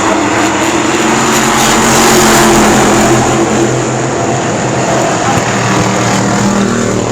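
Several stock car engines running hard as a field of race cars laps the track, swelling loudest around two to three seconds in as cars pass close.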